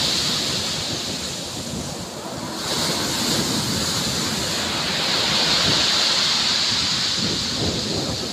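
Sea surf breaking and washing up a pebble beach. The rush eases about two seconds in, then a fresh wave surges in and swells louder before easing near the end.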